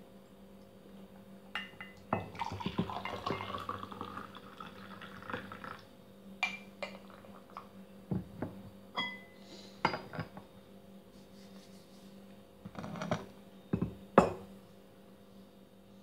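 Liquid, likely tea, poured into a cup, its pitch rising as the cup fills, followed by scattered clinks of cups, cutlery and dishes on a table, over a faint steady hum.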